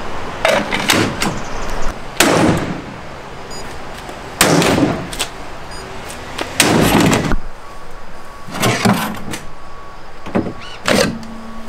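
Sledgehammer blows against a Reach 2S biometric gun safe screwed to a wooden cabinet: a series of heavy knocks and thuds with a short ringing after each, the loudest about two, four and a half and seven seconds in. The blows are breaking the safe's mounting screws out of the wood.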